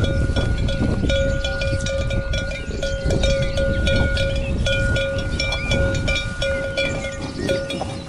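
Cowbells on grazing cattle clanking irregularly, several bells ringing at their own steady pitches and struck again every fraction of a second to a second, over a steady low rumble.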